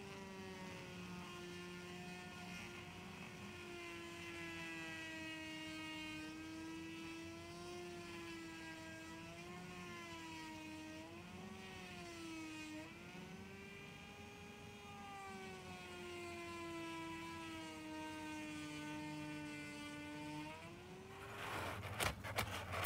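Handheld rotary tool with a small abrasive bit sanding the metal body of a diecast model car: a steady motor whine that wavers and dips in pitch as the bit is pressed against the metal. The whine stops near the end, followed by a few sharp clicks as the body is handled on the table.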